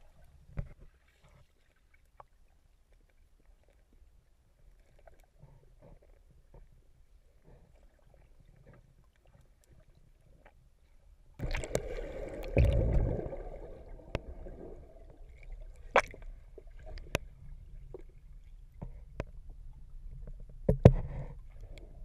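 Underwater sound picked up through a GoPro's waterproof housing: a faint low rumble, then about halfway a sudden loud rush of water noise lasting two or three seconds, followed by a few scattered sharp clicks and knocks.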